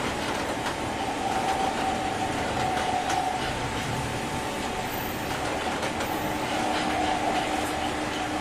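201 series electric train running, heard from inside a motor car. A steady whine wavers slightly over the running noise, a lower tone joins about six and a half seconds in, and there are a few light clicks from the wheels.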